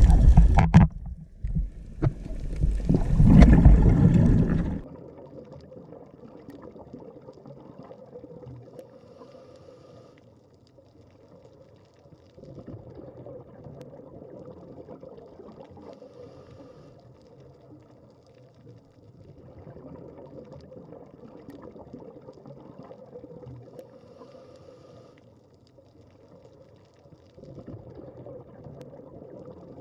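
Scuba diver breathing underwater through a regulator: two loud rushes of exhaled bubbles in the first five seconds, then a much quieter, uneven underwater gurgle that comes and goes.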